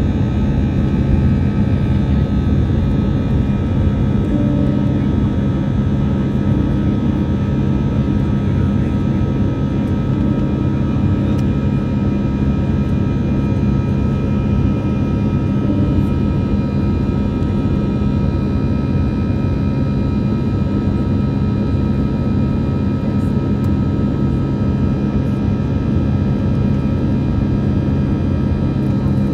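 Airbus A319 cabin noise beside its CFM56 turbofan engine while the airliner climbs out after takeoff: a steady deep rumble of engine and airflow, with several steady high tones over it.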